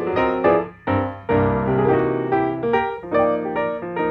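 Background music played on keyboard: a steady run of struck chords, each fading before the next.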